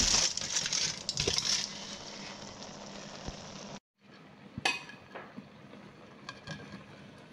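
Aluminium foil crinkling as it is pulled off the clay pot, loudest in the first two seconds. After a short break, a metal slotted spoon clinks and scrapes lightly against the clay pot and the rice.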